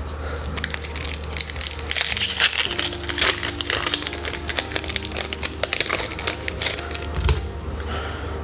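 Foil Magic: The Gathering booster pack wrapper crinkling and crackling as it is torn open by hand, densest from about two seconds in until near the end.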